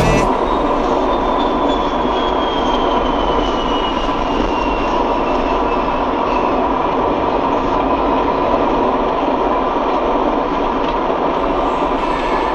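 Steady rushing noise of a moving vehicle, with a faint high whine that slowly falls in pitch.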